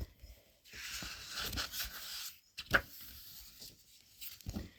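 Soft paper rustle of a picture book being handled, a page being turned, with a short tap about two and a half seconds in.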